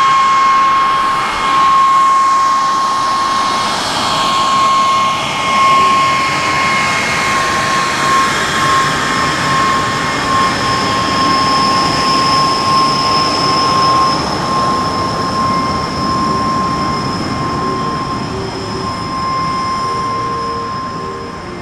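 De Havilland Vampire jet fighter taxiing past, its jet engine giving a steady high whine over a rushing hiss. The sound fades a little near the end as it moves away.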